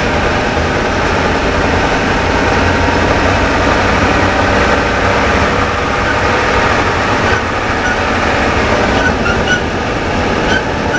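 2013 Ford F-150 4x4's front drive axle making a steady grinding rumble, the sign of a failing integrated wheel end (IWE) letting the front axle turn in 2WD, as the owner suspected. Faint wavering high-pitched chirps come in near the end.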